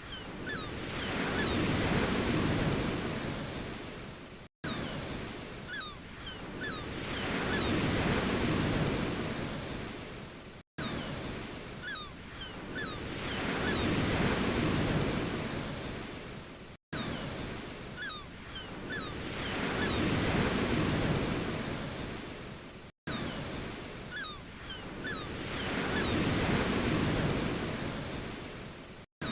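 Ocean waves washing in, one swell rising and fading about every six seconds. The same short recording repeats as a loop, with a brief dropout to silence between repeats.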